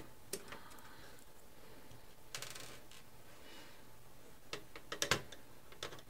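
Faint scattered clicks and light taps of a screwdriver and small screws being worked out of a laptop's chassis, with a few clicks close together about two and a half seconds in and a run of them near five seconds.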